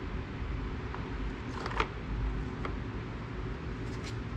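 A few light plastic clicks and knocks about a second and a half in as a plastic funnel is set into the engine's oil fill tube, over a steady low hum.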